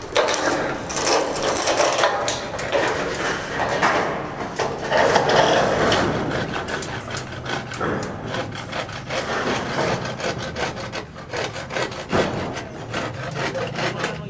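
Wood being sawn or rasped, a scraping sound made of many quick, irregular strokes.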